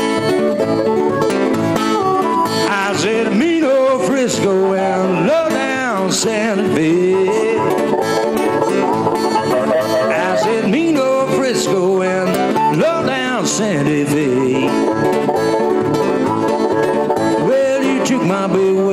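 Blues harmonica played over acoustic guitar in an instrumental break: the harmonica carries the melody with bent, wavering notes while the guitar keeps a steady rhythm.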